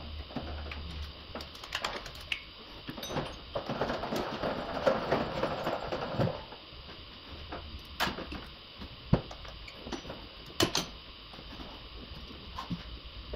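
Hand tools and engine parts being handled: scattered sharp clicks and knocks, with a denser rustling, scraping stretch about four to six seconds in.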